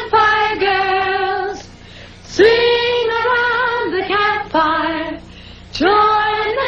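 High-pitched female singing: a song melody in long held notes, with short pauses between phrases about a second and a half in and again about five seconds in.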